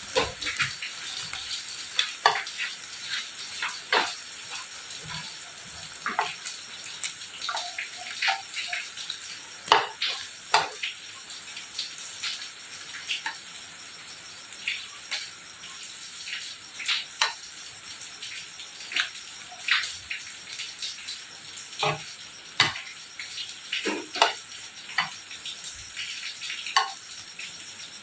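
Food sizzling in a pan with a steady hiss, with scattered clicks and taps of utensils against the cookware.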